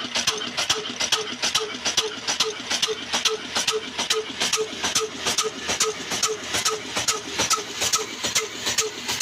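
Old 22 hp Ruston Hornsby-type black diesel engine running with a slow, even knocking beat of about three strokes a second. It is driving a flour mill by flat belt.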